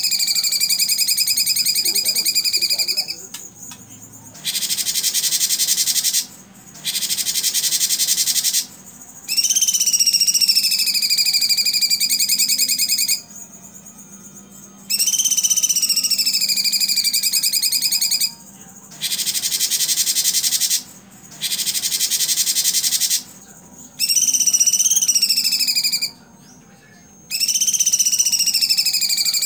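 Cucak cungkok singing its rapid-fire 'tembakan' song in loud phrases of two to four seconds with short breaks between them: very fast trilled notes that drop in pitch and then hold steady, alternating with harsh, buzzy rattling bursts.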